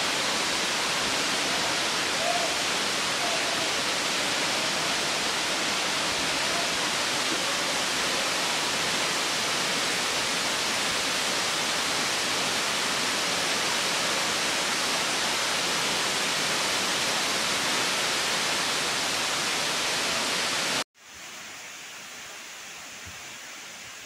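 Waterfall: a steady, loud rush of falling water. About 21 seconds in it cuts to a quieter, similar rush.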